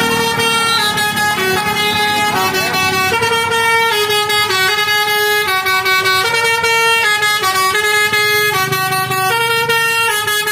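Tour bus Basuri telolet musical horn playing a tune of steady notes that change pitch every half second or so, with no break between them. It cuts off abruptly near the end.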